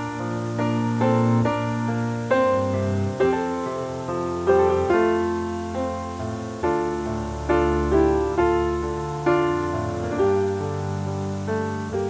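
Background piano music: notes and chords struck at a slow, even pace, each fading before the next.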